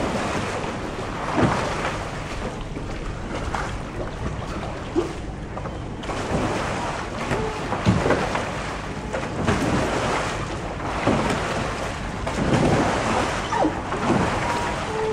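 Water splashing as a capsized sea kayak is rolled back upright, the paddle and the kayaker's body breaking the surface in a few splashes, strongest about eight seconds in and again near the end, over steady lapping and sloshing of river water.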